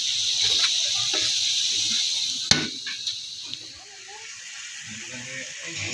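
Skipjack tuna sizzling in a hot double-sided grill pan on a gas stove: a steady hiss. A single sharp click comes about two and a half seconds in, after which the hiss is fainter.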